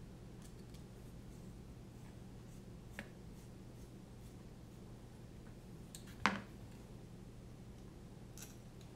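Small clicks and taps from handling tiny screws and standoffs while fastening them into a small carbon-fibre drone frame by hand. There is a faint sharp click about three seconds in, a louder one a little after six seconds, and a couple of faint ticks near the end, over a low steady room hum.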